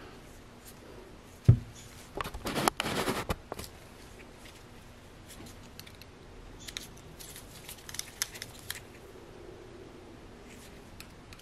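Hand-work on the parts of a hydraulic valve block during an O-ring change: a single knock about a second and a half in, then a burst of scraping and rustling, and lighter clicks and rustles later on.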